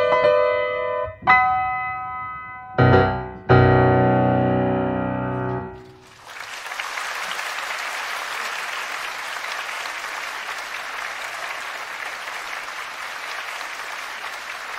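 Yamaha grand piano playing closing chords: three loud struck chords, the last and deepest ringing out for about two seconds before it stops. About six seconds in, an audience starts applauding steadily.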